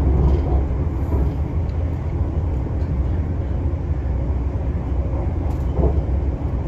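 Steady low rumble of a passenger train running at speed, heard from inside the carriage: wheels on rail and running gear, with a few faint clicks.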